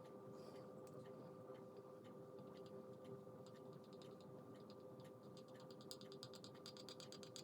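Near silence: room tone with a faint steady hum, and a faint rapid ticking, about eight ticks a second, over the last two seconds or so.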